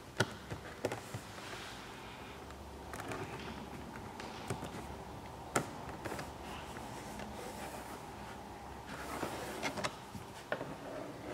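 Light clicks, taps and rubbing as hands press and slide along a car door-panel trim strip to seat it, with a scattered handful of sharper knocks.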